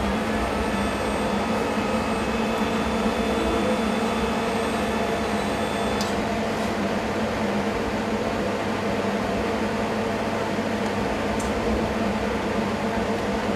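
Steady electrical hum of an electro-discharge machine and its controls, with a faint high whine that stops with a click about six seconds in.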